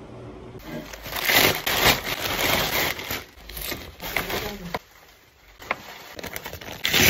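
Clear plastic bag crinkling and rustling as it is handled, in irregular loud bursts with a short lull about five seconds in.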